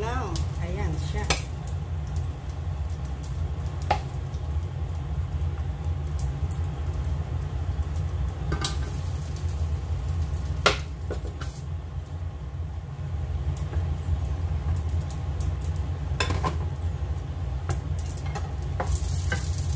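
Wooden spatula and spoon scraping and knocking against a bowl, a plate and frying pans as fried rice is served out, a few sharp clicks spread through, over a steady low hum.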